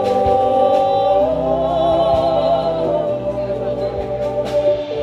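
Live band music at a concert, with a long held note with vibrato from about one to three seconds in over the band.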